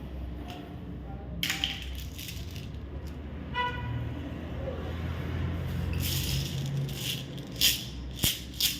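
Wrapped candies and chocolates rattling and crinkling in their plastic packaging as it is handled, with several sharp clicks near the end.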